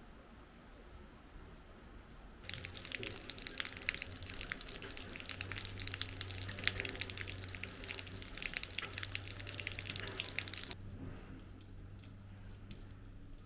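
Snowmelt water dripping and splashing fast from roof eaves, a dense patter of drops that starts abruptly a couple of seconds in and cuts off abruptly about three seconds before the end.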